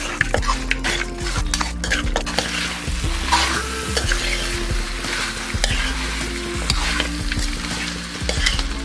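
Mutton pieces frying in ghee in an iron pan, sizzling steadily while a metal spatula stirs them and scrapes and knocks against the pan.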